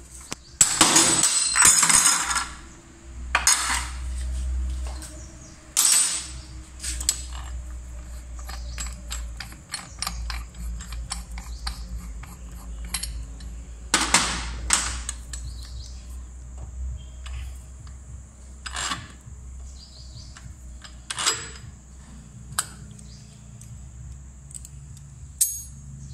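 Compressed air hissing from a blow gun in bursts, one long blast about a second in and shorter ones later, among light metallic clicks and clinks as the flywheel rotor comes off a motorcycle crankshaft.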